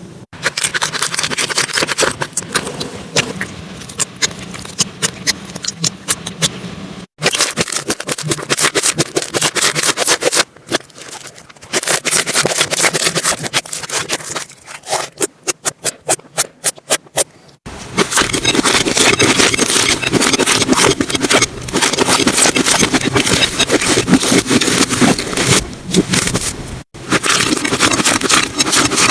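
Slime being squeezed and poked close to the microphone, giving wet clicks and crackling pops. It comes in several short segments split by abrupt cuts; some hold quick regular clicking, others denser crackling.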